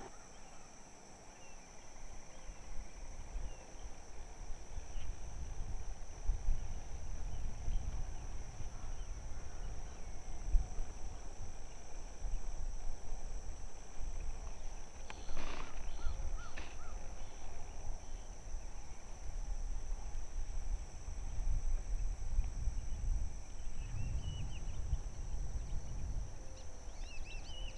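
Outdoor field ambience: a low rumble on the microphone under a steady high insect drone, with a couple of short bird calls about fifteen seconds in and a few faint chirps near the end.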